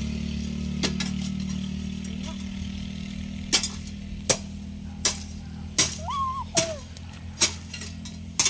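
A metal garden hoe chopping into the soil during weeding: sharp clinking strikes, coming about once every three-quarters of a second in the second half.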